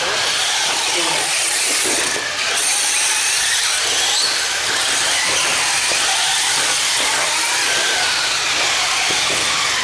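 Several radio-controlled racing cars running laps together, their motors whining and rising and falling in pitch as they speed up and slow down through the turns.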